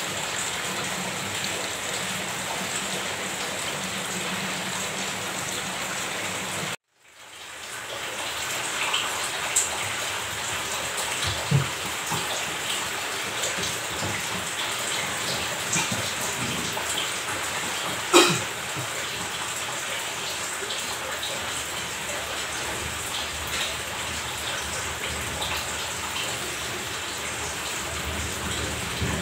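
Water from a twin-tub washing machine gushing steadily out of its drain hose onto a tiled floor. It cuts out abruptly about a quarter of the way in, then the steady water sound fades back in, with a few light knocks and one sharp knock past the middle as clothes are handled at the machine.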